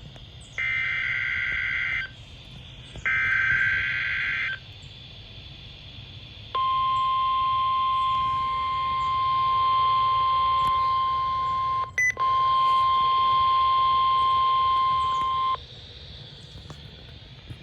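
NOAA Weather Radio Required Weekly Test signal: two harsh screeching bursts of SAME digital header data, then the steady single-pitch warning alarm tone held for about nine seconds, with a brief dropout partway through, over a low radio hiss.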